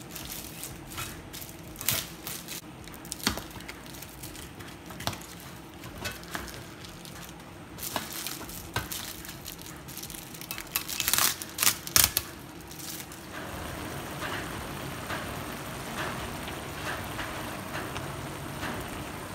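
Metal biryani pots and their lids knocking and clinking as they are handled, with plastic wrapping crinkling; the loudest clatter comes about eleven to twelve seconds in. About thirteen seconds in it gives way to a steady sizzle of food frying in a pan, stirred with a spatula.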